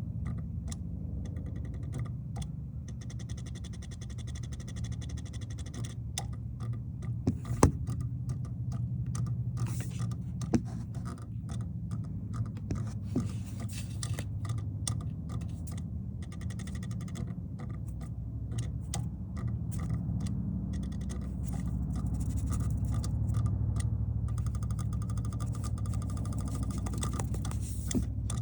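Repeated clicking from the engine compartment of a 2020 Toyota RAV4 Hybrid that won't start, over a steady low hum, with one sharp louder click about seven and a half seconds in. The clicking goes with the no-start fault, together with a brake pedal that feels stuck.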